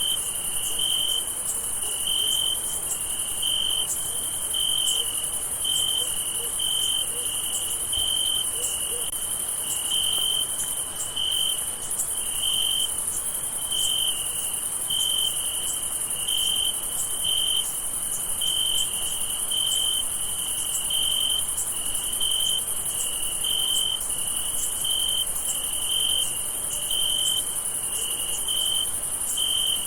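Night chorus of crickets: a steady, evenly spaced chirping of a little more than one chirp a second, over a continuous high-pitched trill of many insects.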